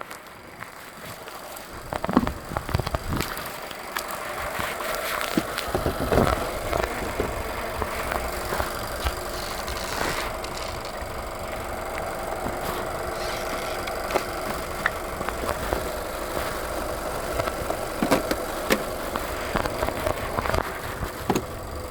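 A car engine idling steadily, with occasional sharp clicks and knocks over it.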